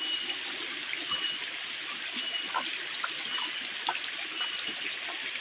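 Steady rush of a flowing stream, with short high peeps repeating every half second or so over it.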